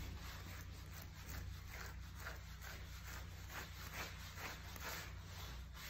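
Simpsons Flexi Slicker brush raked again and again through a dog's thick curly doodle coat under the ears, a soft scratchy rasp about two or three strokes a second.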